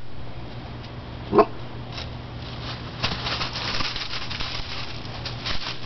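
An Australian Shepherd puppy gives one short yip about a second and a half in. From about three seconds in, dry oak leaves crunch and rustle underfoot.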